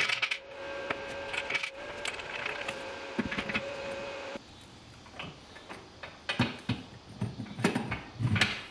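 Square steel tube legs of a fold-down welding table clinking and knocking against the steel frame as they are swung on their pivots and fitted together, with a cluster of sharp metal knocks in the last few seconds.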